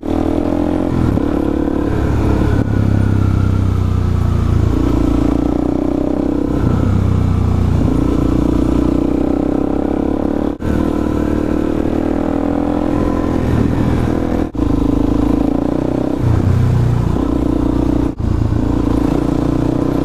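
2006 Suzuki DR-Z400SM's single-cylinder four-stroke engine through a full Yoshimura exhaust, running steadily while the bike rides along at low speed. Its note shifts a few times, and the sound drops out briefly three times in the second half.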